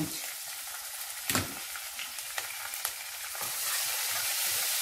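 Hot oil sizzling in a steel kadai as a spice tempering of fennel, cumin and green chilli fries with mint chutney just added, with one sharp knock about a second in. The sizzle grows louder near the end as a spoon stirs the mixture.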